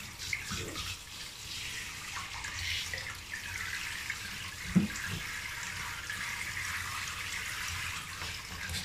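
Handheld shower head spraying water over a chihuahua and into the plastic basin it stands in: a steady hiss of spray with splashing. A short thump comes about five seconds in.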